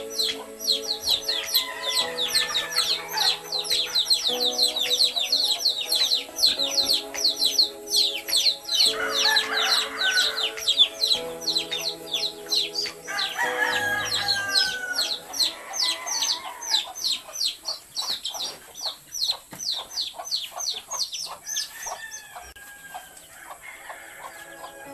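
Chickens clucking and a rooster crowing, over a fast run of high chirps that thins out in the second half. Background music plays underneath.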